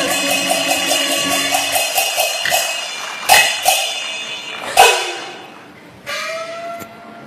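Peking opera percussion accompaniment: quick clapper and drum strokes, then loud cymbal-and-gong crashes about three and a half and five seconds in that ring out. About six seconds in comes a single gong note that falls slightly in pitch.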